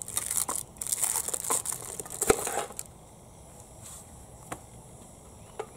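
Baking paper crinkling and rustling as a paper-wrapped bread roll in its aluminium insert is pulled out of a military mess tin, with a single sharp knock about two seconds in. The rustling stops about three seconds in, leaving a few faint ticks.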